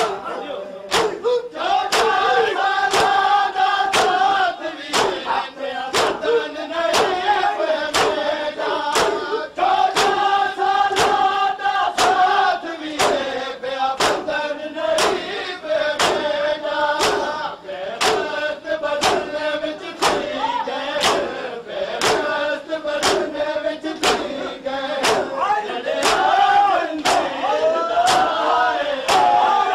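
Matam: a group of men chanting a noha together while striking their bare chests with their hands in unison, loud sharp slaps in a steady beat about twice a second.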